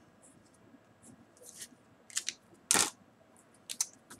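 Felt-tip pens being written with and handled on a desk: a short scratch of writing on paper, then a few sharp clicks and one louder knock near three seconds in as the writer swaps a black pen for a blue one.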